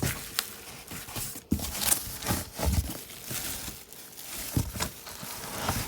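Rustling and crinkling of packaging as gaming-chair parts are pulled out of their cardboard box, with several knocks and thumps of parts against the box.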